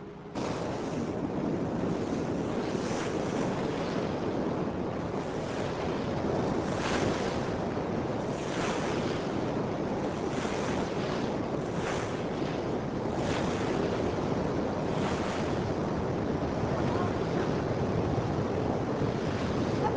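Wind buffeting the microphone over rushing water, with a swish of water about every one to two seconds. It starts abruptly just after the beginning.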